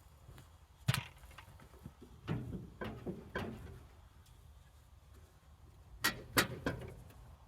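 A few short knocks and clunks against a low background rumble: one about a second in, a group of three a little later, and three more close together near the end.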